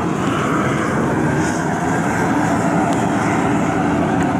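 High-pressure propane burner running under a crawfish boil pot: a steady, loud rushing of the gas flame.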